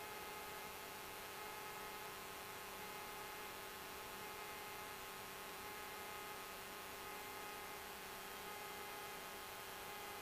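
Steady electrical hum over a hiss, with several fixed tones and no change, typical of the background noise on a Cessna 172's intercom and radio audio feed.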